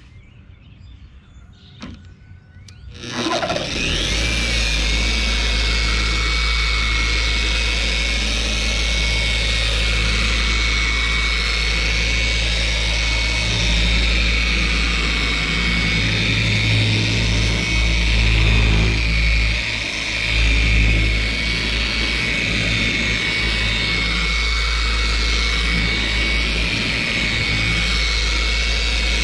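Electric car polisher with a yellow foam polishing pad switching on about three seconds in, then running steadily with a high-pitched whine. Its sound wavers gently as it is worked over the painted panel, buffing in finishing polish in the final polishing stage of a paint correction.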